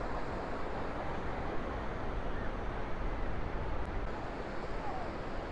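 Steady wash of surf from waves breaking along a sandy beach, mixed with a low wind rumble on the microphone.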